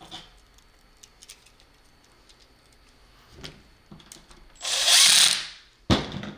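Impact drill with a Phillips bit runs for about a second, driving a plug's terminal screw down on a wire, after a few faint handling clicks; a sharp click follows.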